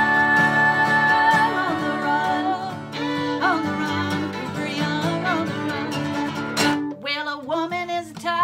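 A bluegrass trio with acoustic guitar strumming and fiddle. The singers hold the last sung note for about the first second, then guitar strumming carries on with short fiddle slides. A sharp click comes near the end, and the fiddle takes up a wavering bowed melody in the last second or so.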